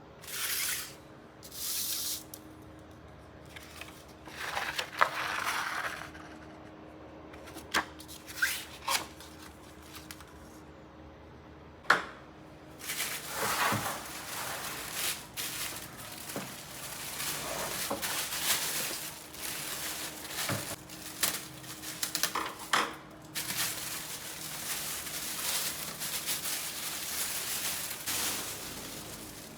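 Rustling, clicks and knocks of handling packaging and plastic parts, in irregular bursts with a sharp knock about twelve seconds in, over a faint steady hum.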